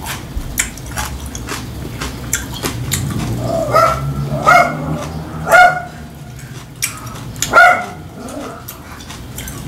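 A dog barking: four short barks in the middle few seconds, over scattered clicks of chopsticks on dishes and the sounds of eating.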